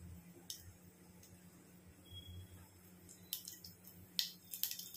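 Mustard seeds crackling in hot oil in a pot: faint, scattered pops that come more often near the end. This is the cue that the tempering oil is hot enough for the cumin to go in.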